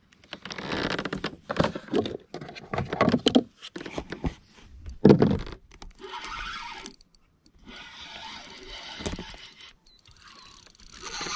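Irregular scraping, rustling and knocking of a spinning rod and reel being worked in a plastic fishing kayak while a hooked fish is played and brought alongside.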